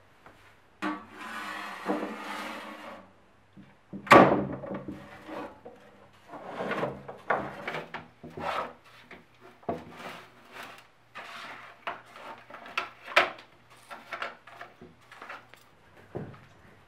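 Hand brush sweeping broken grey cast-block chunks and grit across a wooden tabletop into a metal dustpan. A long scraping drag comes first, then a loud clatter about four seconds in, then many short scratchy brush strokes and knocks of rubble against the pan.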